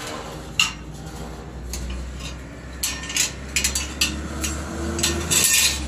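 Scattered metallic clinks and knocks, thickest near the end, over the low rumble of a vehicle engine that grows louder as a van drives up the road.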